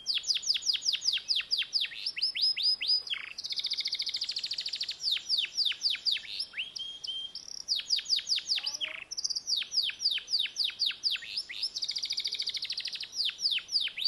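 Domestic canary singing one continuous song. Runs of quick, steeply falling notes, about six a second, alternate with fast high rolling trills.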